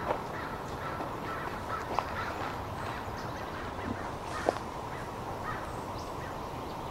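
Outdoor ambience under trees, a steady background hiss with a few short bird calls, the sharpest about two seconds apart.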